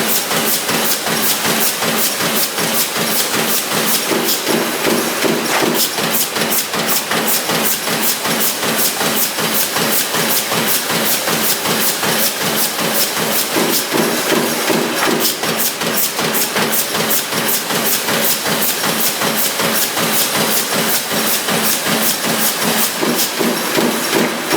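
CNC sheet-feed press line running: the press strikes in rapid, even strokes, about five a second, over steady machine noise and hiss. A hum swells for a second or two about every nine seconds.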